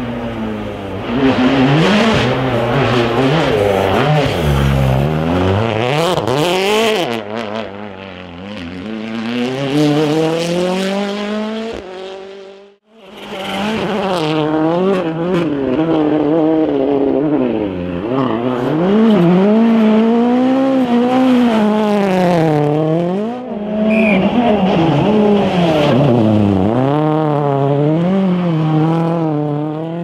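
Rally car engines revving hard as cars drive past, the pitch climbing and dropping every second or two through gear changes and lifts. The sound cuts out briefly about 13 seconds in, then carries on the same way.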